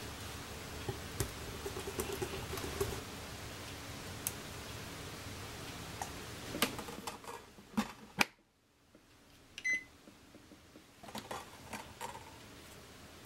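A wire whisk clicking and scraping in a glass bowl, stirring batter, then the batter pouring into a rice cooker's metal inner pot. A few sharp clicks follow, then a short electronic beep from the rice cooker and some soft clicks near the end.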